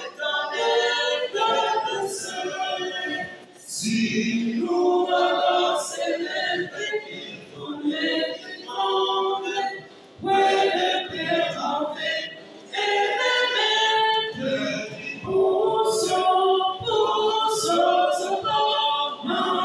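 A small men's choir singing a hymn a cappella in close harmony, in French, phrase by phrase with short breath breaks between lines.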